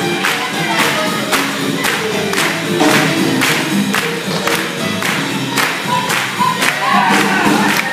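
Live swing band playing for lindy hop dancing, with a steady beat of about two strokes a second.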